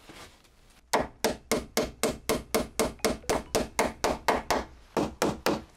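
Hammer driving nails through a steel angle bracket into a timber post of a frame. It gives a fast, even run of blows, about four a second, starting about a second in and stopping shortly before the end.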